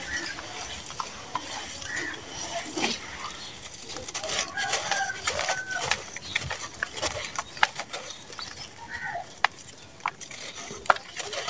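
Hands crushing lumps of gritty, dry red sand-cement over a bowl: many sharp crunchy crackles and crumbs falling into the bowl. A few short animal calls sound in the background.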